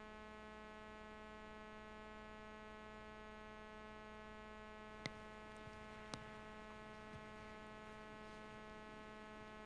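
Faint, steady electrical mains hum, with two faint clicks about five and six seconds in.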